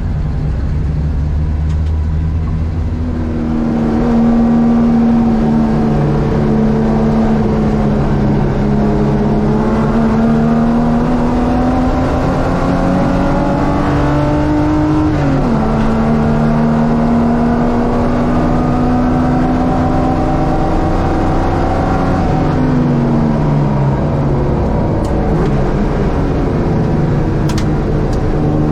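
Ford Capri race car's engine running hard on track. From a few seconds in the revs climb slowly, drop sharply about halfway through as it changes gear, climb again, then fall away after about two thirds of the way as it comes off the power.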